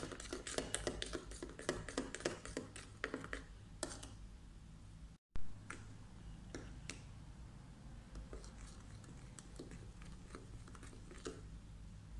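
Metal spoon clinking and scraping against a china bowl while beating egg batter: rapid clicks for the first few seconds, then, after a brief dropout about five seconds in, sparser taps and scrapes.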